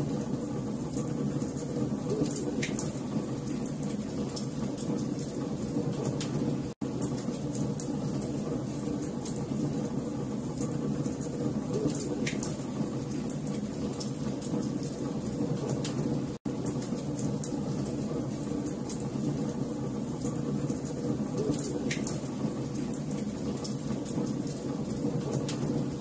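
Wood fire burning, a steady low rumble with frequent sharp crackles and pops from the burning logs. The sound cuts out for an instant twice, about every ten seconds.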